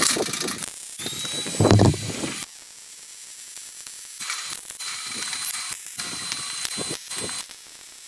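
Metal clanking and knocking at first, then a quieter mechanical hiss with a thin high whine and a few more knocks.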